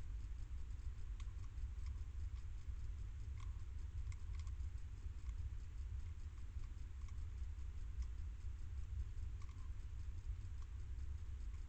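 Hedgehog eating from a metal bowl: small, irregular clicks and crunches of chewing, over a steady low hum.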